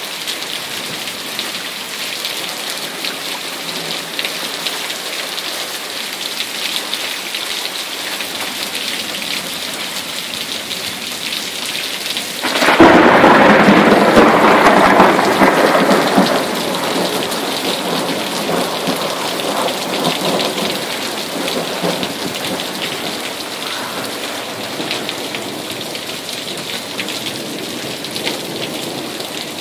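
Steady rain falling. About twelve seconds in, a sudden loud thunderclap breaks out and rumbles away over several seconds, then the rain goes on alone.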